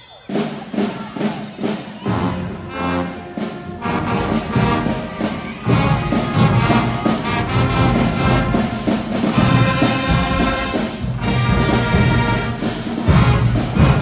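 High school marching band playing: the piece opens with evenly spaced percussion hits, then the brass (trumpets, trombones, sousaphones) comes in and builds to the full band playing loud from about six seconds in.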